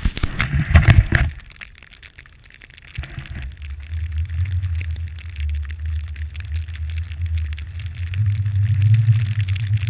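Muffled wind and riding rumble picked up by a pole-held GoPro Hero 2 as a snowboarder rides through deep powder. A loud burst of noise in the first second, then almost quiet, then a steady low rumble builds from about three seconds in and grows louder near the end.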